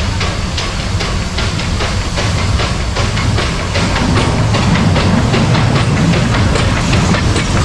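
E10 60 steam locomotive working slowly past at close range: regular beats about three a second over a steady hiss of steam, with a low rumble that grows louder about halfway through as the engine draws level.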